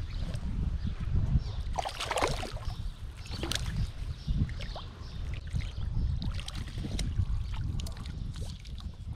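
Water splashing as a small hooked brown trout thrashes at the surface and is drawn into a landing net, the biggest splashes about two seconds and three and a half seconds in. A steady low rumble runs underneath.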